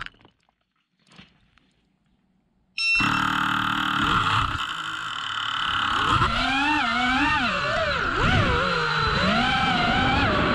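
FPV quadcopter's brushless motors and propellers whining, picked up by an onboard microphone. The sound starts suddenly about three seconds in after near silence, and from about six seconds on its pitch rises and falls with the throttle.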